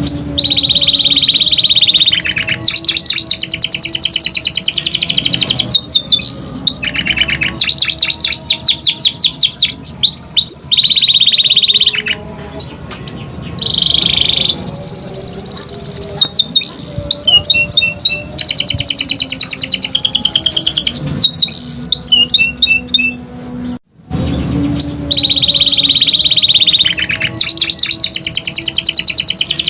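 Canary singing loudly: stretches of rapid rolling trills alternate with held whistled notes and quick rising chips. After a short break about three-quarters through, the same song phrase starts over.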